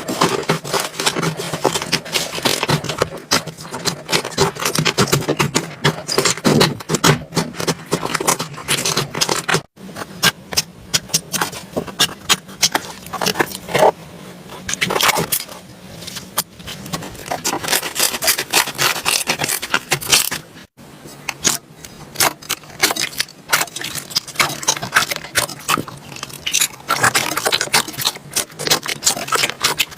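Slime being squeezed, stretched and poked by hand, giving a dense stream of irregular crackling and popping clicks. The sound breaks off abruptly twice.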